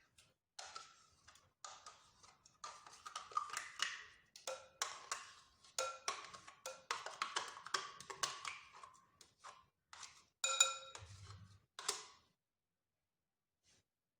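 A utensil stirring batter in a mixing bowl, with rapid irregular clinks and knocks against the bowl that ring briefly, and a louder ringing knock about ten and a half seconds in.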